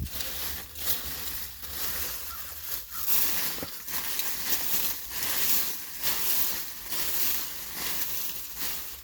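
Digging through a pile of dry leaves and compost, rustling and crunching in repeated strokes about once a second.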